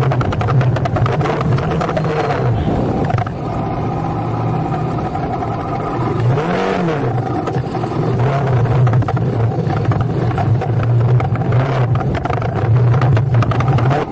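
Motorcycle engine pulling hard in low gear up a steep, rough off-road climb, its revs repeatedly dropping and rising as the rider works the throttle, with one sharper rev peak and fall near the middle.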